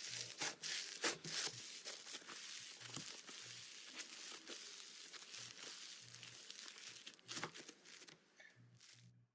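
Slime being squeezed and pulled apart by hand, giving a run of small crackling clicks and pops that fades out near the end.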